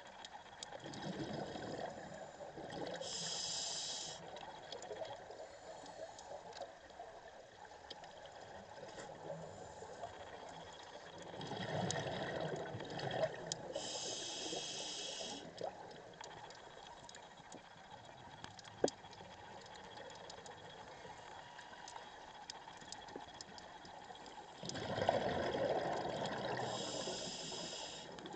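Scuba diver breathing through a regulator underwater, three slow breaths: each is a bubbling rush of exhaled air followed by a short hiss of inhaling through the regulator's demand valve.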